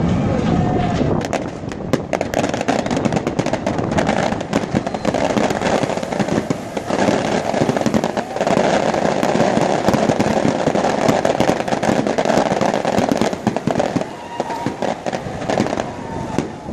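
Side launch of an offshore supply vessel: a dense run of sharp crackling pops over the rush and splash of water as the hull slides off the slipway and drops sideways into the water.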